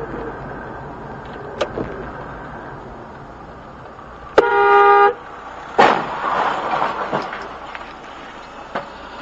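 Car horn sounds once for under a second, then about a second later a sudden bang of a collision followed by a second of crunching noise, over steady engine and tyre noise heard from inside the car.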